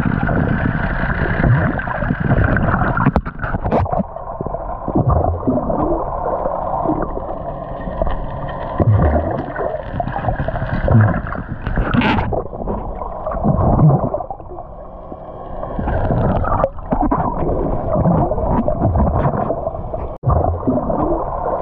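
Water sloshing and gurgling against a camera held under the sea surface, heard muffled, with a dull low surge every few seconds.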